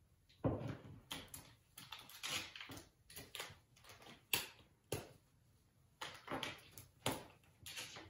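Irregular clicks, clinks and rustles of a macaw climbing on a hanging rope toy, its beak and feet working the metal chain and hook the toy hangs from. The sharpest knocks come about half a second in and just after four seconds in.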